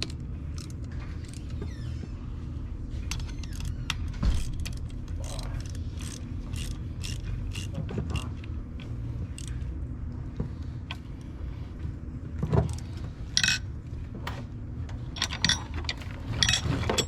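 Hand tools and metal hardware clinking and ratcheting while airbag brackets are bolted up under a pickup: a long run of sharp clicks and clanks over a steady low hum, with the loudest clanks near the end.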